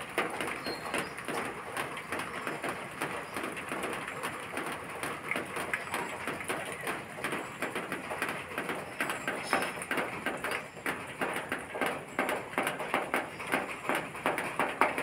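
Outdoor ambience: a steady, dense crackling noise, with a few faint, short, high bird chirps over it.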